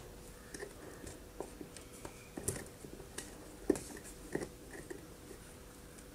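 Faint rustling and scattered small clicks and taps of a cloth being tied tightly over the mouth of a plastic jar by hand; the sharpest tap comes a little past halfway.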